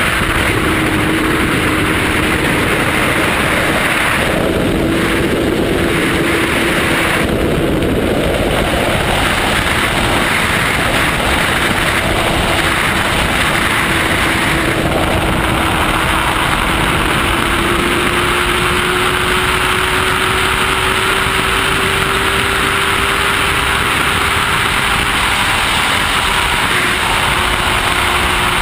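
Honda CBR1000RR SP's inline-four engine holding a steady high-rpm note at around 240 km/h, under heavy wind rush. The engine note climbs slowly in pitch and drops back about three-quarters of the way through.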